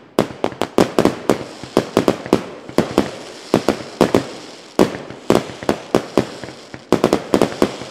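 Fireworks going off: a rapid, irregular string of bangs over a continuous crackle.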